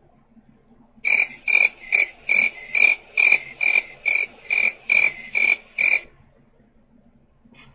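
Cricket chirping sound effect played over a phone line: about twelve evenly spaced chirps over five seconds, starting about a second in, the 'crickets' gag for awkward silence.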